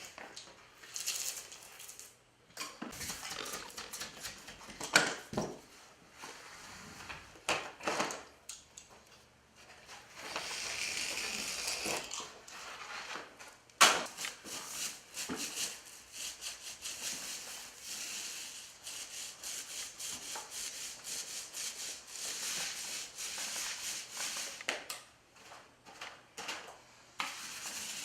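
Utility knife cutting and scraping through magnetic underlayment in irregular strokes, with handling of the panel and a couple of sharp knocks.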